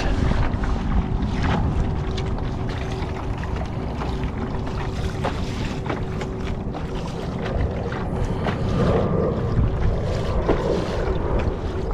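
Water rushing and splashing along the hull of a moving kayak, with wind on the microphone. A faint steady hum sits underneath and stops about nine seconds in.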